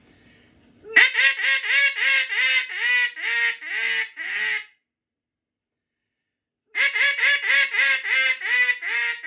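Matt Pierce acrylic Big Bore Mallard duck call blown loud in two runs of about a dozen quacks each, with a pause between. Each quack falls in pitch, and each run fades toward its end. It is calling at a volume meant to reach ducks flying high.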